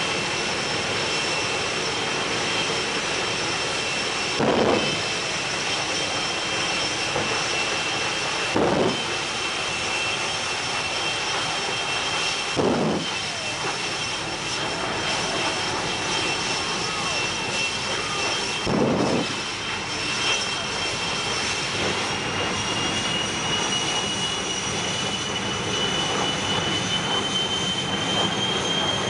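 Jet engine of a jet-powered semi truck running steadily with a high whine that climbs slightly in pitch over the last third. Four short, louder bursts break in along the way.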